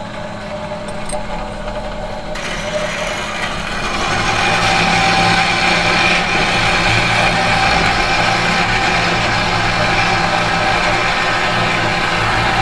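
Metal machine hum: a steady mechanical hum with several held tones, growing louder over the first few seconds. A brighter, hissier layer comes in about two seconds in.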